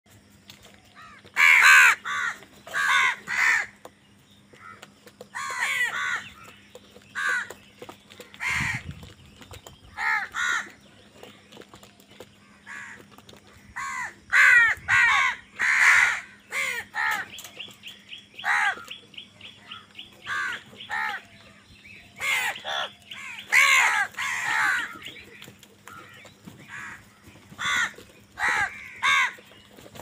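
A flock of house crows cawing, harsh calls coming one after another and overlapping as they compete over food, with a quick rattling run of short notes a little past halfway.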